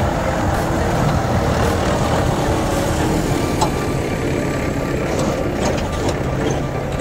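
Diesel engine of a backhoe loader running steadily while working, with a single sharp click about three and a half seconds in.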